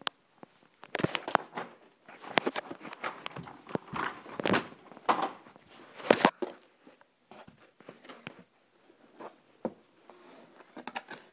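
Handling noise from a phone being moved about and covered: a dense run of knocks, rubs and rustles for the first six seconds or so, then only scattered faint clicks.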